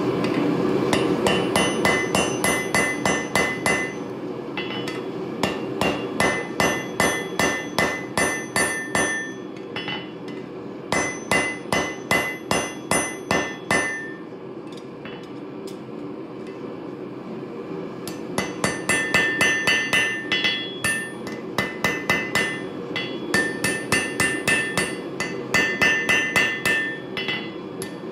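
Hand hammer forging a hot railroad spike on a steel anvil: quick runs of about four blows a second, each blow ringing. The runs break off for short pauses, the longest of about four seconds halfway through, over a steady low rush.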